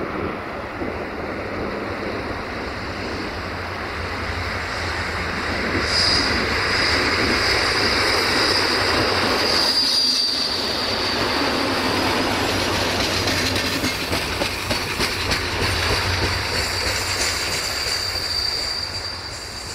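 A diesel railcar rolls past at close range, its wheels clattering over the rail joints. About six seconds in, a high steady wheel squeal sets in and holds.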